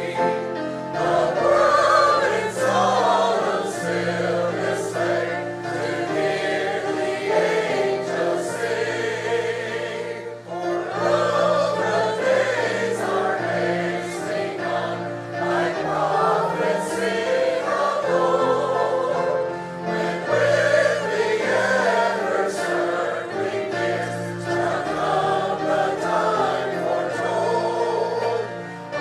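Many voices singing a hymn together in a church, over sustained instrumental accompaniment.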